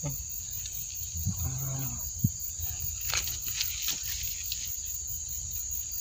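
Steady, high-pitched chorus of insects.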